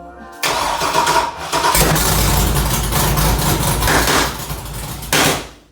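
LS 408 stroker V8 cranking and catching about a second and a half in, then running rough and loud; a short sharp burst near the end before the sound cuts off suddenly. The engine is a hard starter that has been backfiring.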